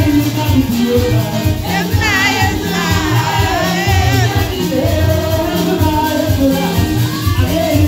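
Live gospel singing: several singers on microphones over loud amplified backing music with a steady, repeating bass beat.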